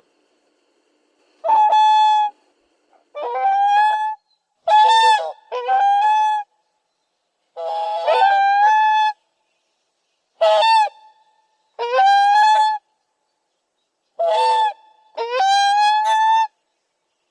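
Swan calling: a series of about nine loud calls, each held at a steady pitch for half a second to a second and a half, some in quick pairs, with silence between.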